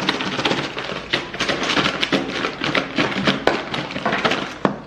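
Potato chips being shaken hard with sauce in their container, a dense continuous crackling rattle that stops just before the end.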